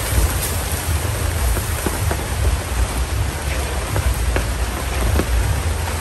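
Steady rain, an even hiss with a low rumble underneath and a few faint ticks.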